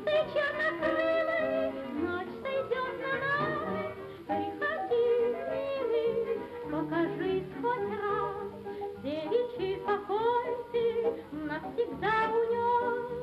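Music with wordless singing: the voice slides and warbles up and down in pitch over a steady backing.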